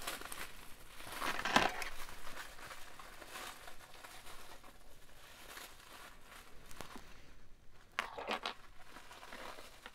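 Crinkling and rustling of wrapping as a piece of costume jewelry is unwrapped by hand, in irregular bursts that are strongest about one and a half seconds in, with more near the end.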